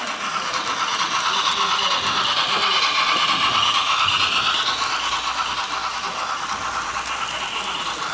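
Model freight train rolling past: many small metal wheels rattling and scraping on the track in a steady hiss with fine rapid ticks, growing louder toward the middle as the wagons pass close and then easing off.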